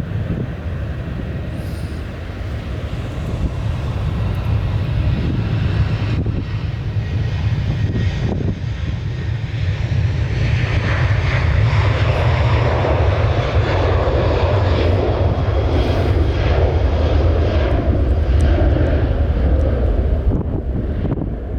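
Jet airliner's engines passing close by: a deep rumble that grows louder over the first ten seconds, with a broad roar on top, and falls off near the end.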